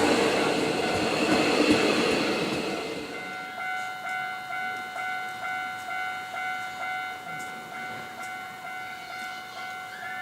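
Japanese railroad crossing alarm ringing its repeating two-tone "kan-kan" at an even pace while a train runs through the crossing. The train's noise dies away about three seconds in, leaving the alarm ringing alone.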